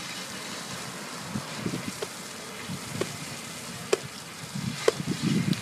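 Heavy rain pouring down in a steady hiss, with a few sharp ticks in the second half.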